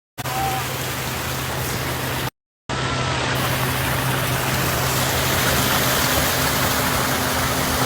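Water pouring steadily from a swimming-pool waterfall, an even rushing splash with a low steady hum beneath it. The sound drops out for a moment about two and a half seconds in.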